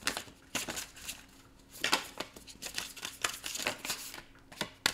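A deck of oracle cards being shuffled by hand: a run of short papery slaps and rustles at uneven intervals.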